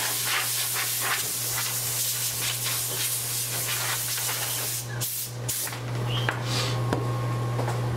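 Compressed air blowing broken glass debris off an opened iPad 3 frame: a long steady hiss for about five seconds, which stops sharply and then returns as one short blast.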